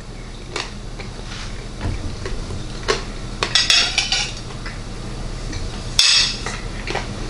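A fork clinking and scraping on a plate as pieces of ham are picked up: a few short clinks, a longer rattling scrape just before the middle, and the loudest clink about six seconds in.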